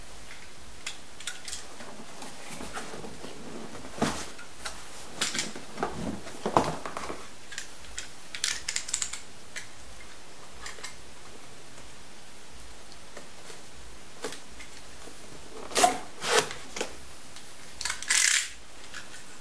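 A cardboard box being handled and opened with a snap-off box cutter: scattered clicks, scrapes and rustles of cardboard and tape, with a quiet stretch midway and the loudest scrapes near the end.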